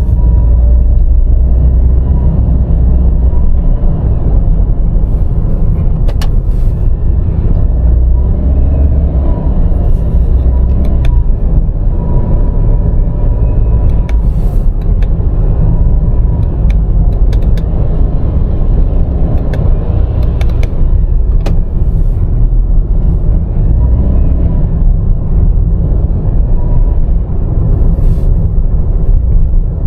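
Honda N-BOX Custom Turbo's 660 cc three-cylinder turbo engine running on the move under a heavy low rumble, with a thin steady whistle-like tone and fainter tones that rise and fall. The whistle is the abnormal noise the owner suspects comes from the electric wastegate actuator of a rebuilt turbocharger.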